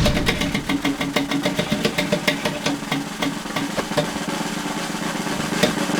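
Spinning prize wheel ticking as its pointer flaps over the pegs: rapid clicks at first that slow down and spread out as the wheel coasts to a stop, over a steady low hum.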